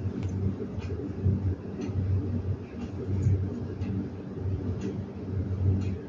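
Faint plastic clicks and taps from a toner cartridge and its small fill-hole cap being handled, with the cap pushed back onto the filling spout near the end, over a low, uneven rumble.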